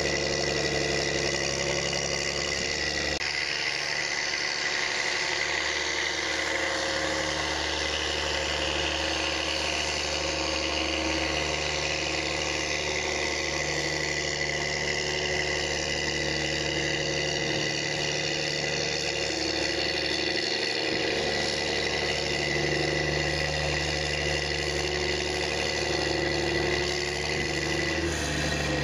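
Large farm tractor diesel engine running steadily while the tractor pushes chopped silage with a front blade. The engine note changes abruptly about three seconds in.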